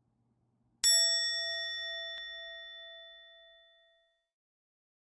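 A single bell-like ding, struck once and ringing out, fading away over about three seconds: an edited-in chime sound effect.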